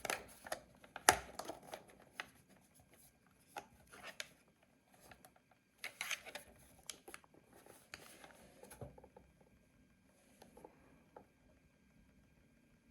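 Hands handling a plastic alarm clock: scattered clicks, taps and short rustles that die away about nine seconds in.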